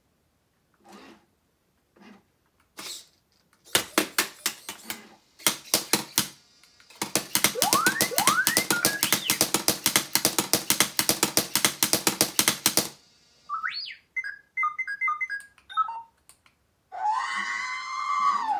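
R2-D2 replica droid playing its beeping, whistling and chattering sound effects through its onboard speaker. A few clicks lead into a long burst of very fast electronic chatter with rising whistles in the middle, then a string of short beeps and a warbling tone near the end.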